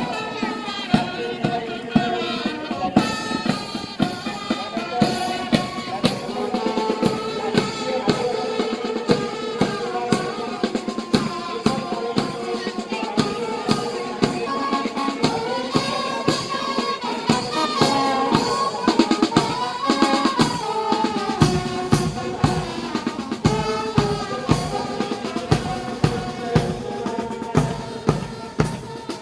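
Police brass band playing a march: saxophones and other horns carry the tune over a steady beat of bass drum and snare drums.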